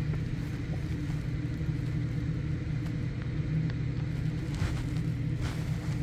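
A steady low hum, with a few faint scuffs and clicks in the second half.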